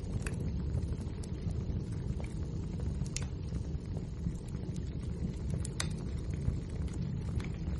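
Wood fire burning: a steady low rumble of flames with scattered crackles and pops of burning logs, the sharpest about three seconds in and again near six seconds.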